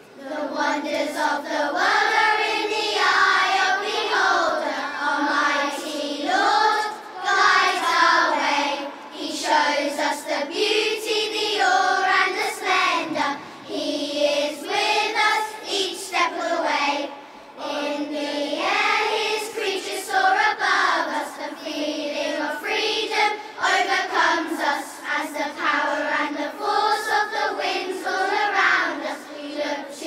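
Children's choir singing a song together, with held, gliding sung notes.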